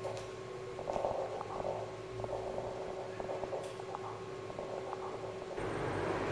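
A steady electronic hum with a crackling texture over it. Near the end it switches abruptly to a fuller, louder hiss and rumble.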